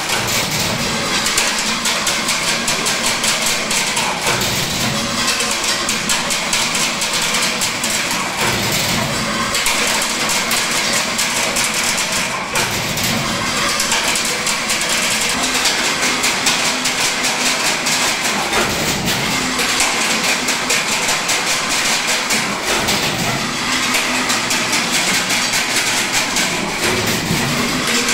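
Chain link fencing machine running, a steady fast metallic rattle and clatter as it weaves wire into mesh.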